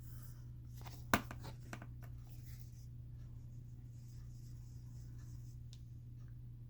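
Faint rubbing and light taps of fingertips on eyeshadow pans and skin while swatching powder onto an arm, with a sharp click about a second in.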